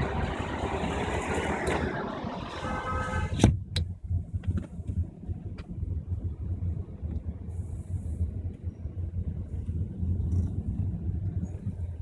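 City traffic heard from a moving taxi: loud street and engine noise, with a brief pitched tone a little before a sharp knock about three and a half seconds in. After the knock the street noise turns muffled and a steady low rumble of the car remains.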